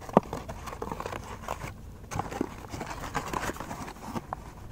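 Gloved hands handling a cardboard box of firecrackers: scattered rustling, scraping and light tapping on the cardboard, with one sharper tap just after the start.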